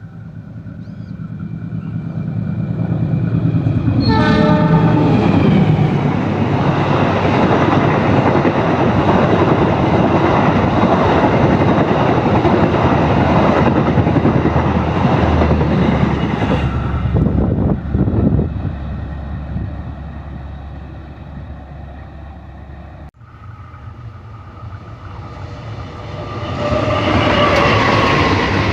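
A locomotive-hauled train approaching and passing, its horn sounding and dropping sharply in pitch as it goes by about four seconds in. The loud running noise of the passing train follows for more than ten seconds and then fades. After an abrupt cut, another train approaches with its horn sounding near the end.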